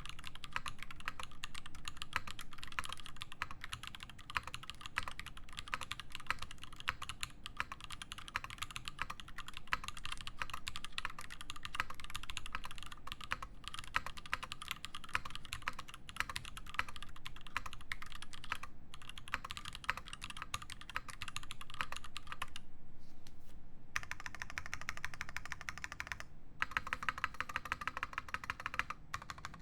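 Fast, continuous typing on an Iron180 mechanical keyboard with lubed Zaku switches in a brass plate and GMK keycaps: a dense stream of keystroke clacks. It breaks off for about a second and a half a little past two-thirds of the way through, and briefly again soon after.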